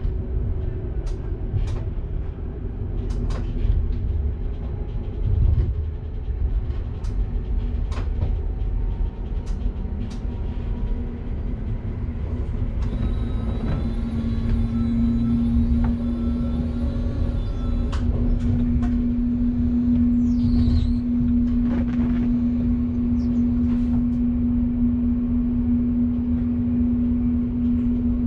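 Train running, heard from inside the driver's cab: a continuous low rumble with scattered sharp clicks. About halfway through a steady hum comes in and holds.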